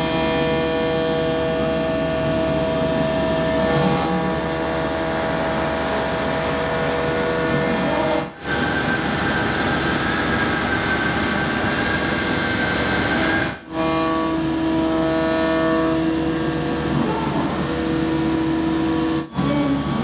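Machining noise from a CNC machine: steady noise with several held tones, the spindle and cutter running through the cut. It breaks off abruptly about 8, 14 and 19 seconds in, and the held tones change after each break.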